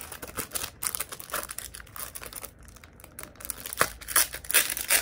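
Thin clear plastic packaging crinkling as hands open the sleeve and slide printed cards and a booklet out of it, in irregular crackles that are loudest near the end.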